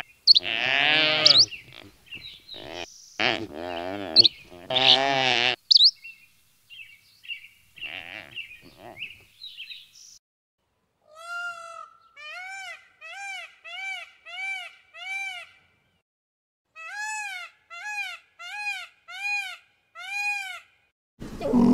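Animal calls: a few long, wavering bleat-like cries, then after a pause two runs of short, arched, pitched notes at about two a second.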